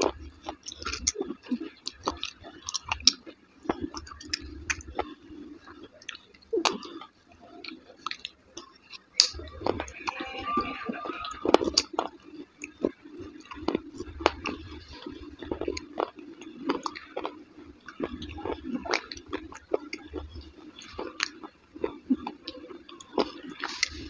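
Close-up chewing of soft, wet dahi vada (lentil fritters soaked in yogurt): wet, squishy mouth sounds with frequent sharp clicks.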